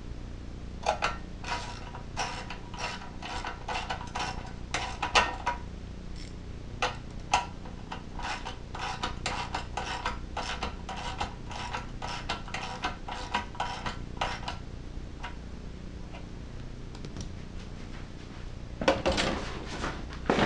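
Socket ratchet wrench clicking in short runs, about two to three clicks a second, as a small screw on the oil fill tube bracket is tightened. Near the end, a louder jumble of handling noise.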